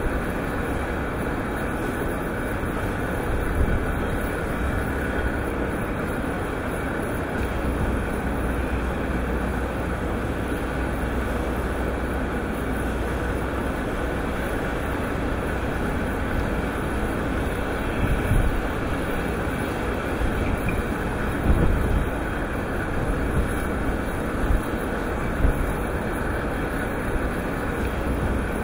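Steady mechanical rumble of a ship loader's conveyor with iron ore pouring from its spout into a ship's hold, with a few short louder bumps in the later part.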